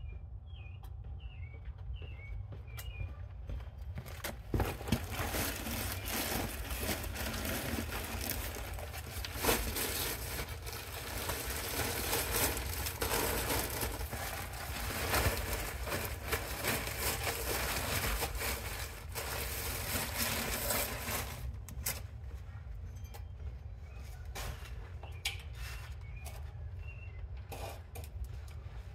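Close, crackling rustle of plastic bags of black mulch being handled and emptied, with mulch pattering out. It starts about four seconds in and stops sharply a few seconds past the middle. A low steady rumble underlies it, with a few faint bird chirps in the quieter stretches.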